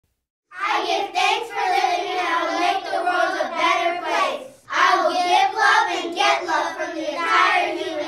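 A group of children's voices together in unison, in two long phrases separated by a short break.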